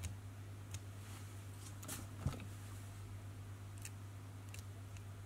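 Faint scattered clicks of a permanent marker and fingers handling the braided mylar body of a fly in the vise while a gill is marked on it, the most distinct click about two seconds in, over a steady low hum.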